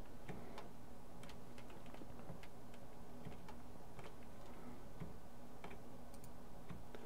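Irregular clicks of a computer mouse and keyboard as the Shift key is held and the mouse button clicked, over a faint steady hum.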